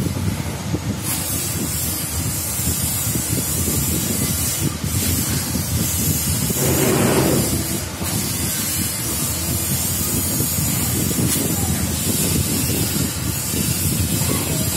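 Steady, fairly loud hissing noise, with a brief louder swell about seven seconds in.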